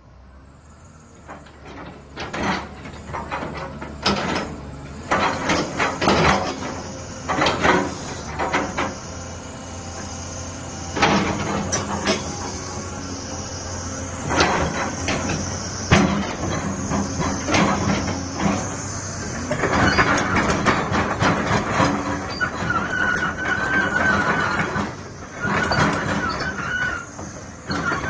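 Caterpillar 320D hydraulic excavator working, its diesel engine running under repeated metallic clanks and knocks from the steel tracks and boom as it moves. For several seconds toward the end there is a high metal-on-metal squeal.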